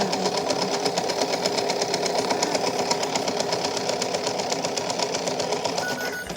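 A small motor running steadily with a fast, even rattle, cutting off abruptly near the end.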